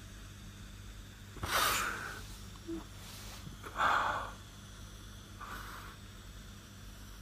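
A person crying, with three heavy breaths drawn through an oxygen face mask about one and a half, four and five and a half seconds in, the first two loudest.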